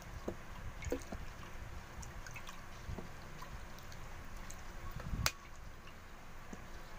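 Foam booster trickling from a plastic bottle into a bucket of liquid detergent mix while a wooden stick stirs it, with liquid sloshing and small scattered clicks. One sharp knock about five seconds in.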